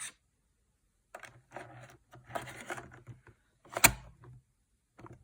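Handling of floppy disks and a floppy drive: short rustles and scrapes of plastic, with one sharp click just under four seconds in.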